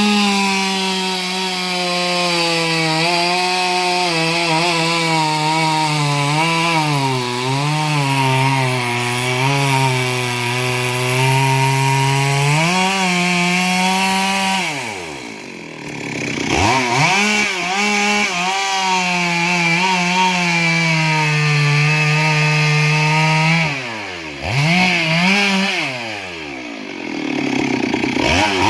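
Chainsaw at high revs cutting wood, its pitch sagging and wavering as the chain bites. About halfway through the throttle is let off and the revs fall, then the saw is revved up and cuts again. Near the end it drops back once more, gives a short blip of throttle, and revs up again.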